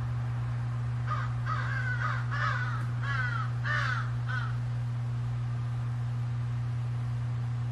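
A steady electrical hum throughout. About a second in comes a run of about six short animal calls, roughly half a second apart, ending about four and a half seconds in.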